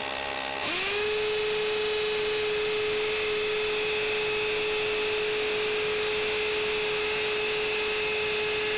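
DeWalt DCD999 brushless hammer drill boring into a concrete slab in hammer mode. It starts slowly on a lightly pressed variable-speed trigger, then about half a second in it quickly speeds up to a steady whine that holds evenly.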